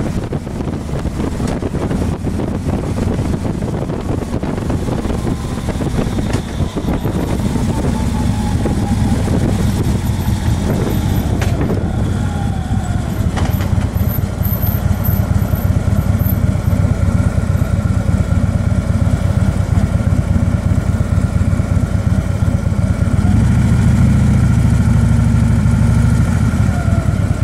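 Vehicle engine and road noise while driving, with wind on the microphone. A tone falls in pitch partway through as the vehicle slows, and a steadier low engine hum takes over near the end.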